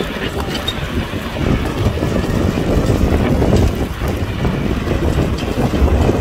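Kubota tractor's diesel engine running steadily, a low rumble that grows louder about a second and a half in.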